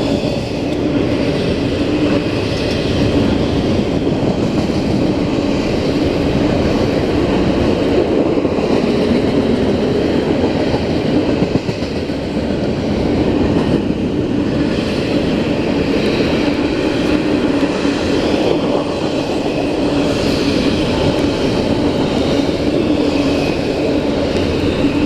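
Freight train of double-stack container cars rolling past, a steady rumble and clatter of steel wheels on the rails.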